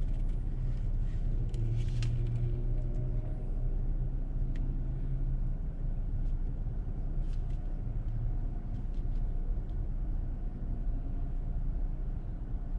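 Car engine idling, heard from inside the cabin: a steady low rumble, with a few faint clicks.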